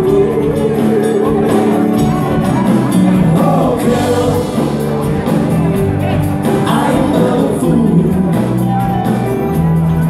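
Live band music: electric and acoustic guitars, bass, keyboard and drums playing a steady song, with a voice singing over them.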